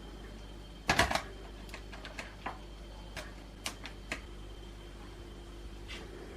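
Irregular light clicks and taps from handling utensils and food while preparing cured salmon. A sharp cluster comes about a second in, then scattered single ticks over the next few seconds.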